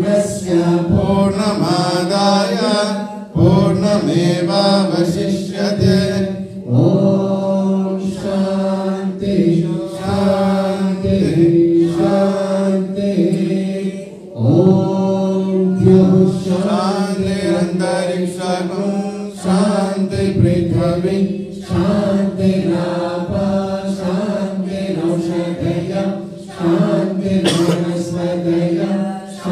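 Voices chanting Sanskrit Vedic mantras in a steady, sung recitation on one held pitch, with a few brief breaks for breath.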